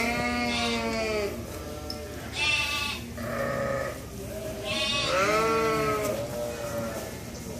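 Sheep bleating: about four separate bleats, the first and last each lasting over a second.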